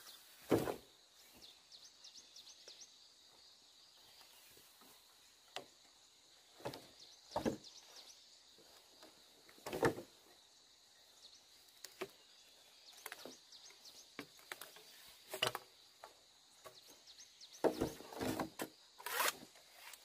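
Green bamboo poles being handled on the ground, knocking and clacking against each other in irregular, scattered knocks, a few louder ones among them and a quick run of them near the end. A faint steady high chirring continues behind them.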